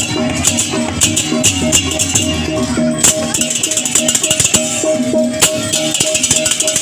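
Balinese gamelan music: rapid, dense clashing of cengceng cymbals over a steadily repeated metallic note.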